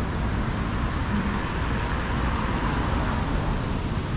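Steady city street traffic noise, an even wash of passing vehicles with a low rumble.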